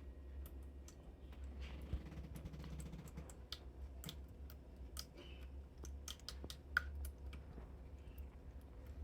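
Xiaomi pet water fountain: many light, irregular clicks and ticks over a steady low hum.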